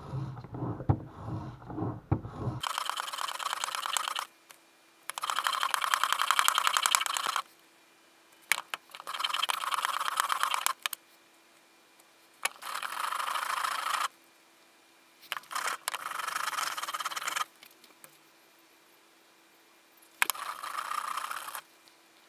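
Chisel held in a honing guide rasping across 600-grit sandpaper on a tile backing, in about six strokes of one and a half to two seconds each with short pauses between. Handling knocks come first.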